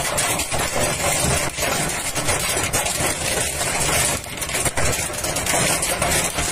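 Hail drumming hard on a vehicle's windshield and roof, heard from inside the moving vehicle: a dense, continuous clatter of impacts over a low rumble of engine and road.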